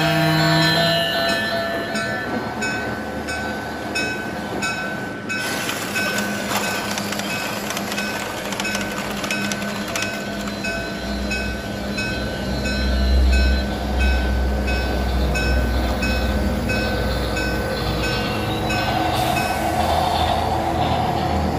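Battery-powered toy trains running on plastic track: a steady motor hum with a regular clicking, about two clicks a second. A deeper rumble swells briefly around the middle.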